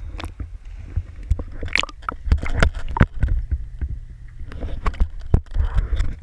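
Pool water sloshing and splashing against a camera held at the surface, with irregular knocks and gurgling as it dips underwater and comes back up.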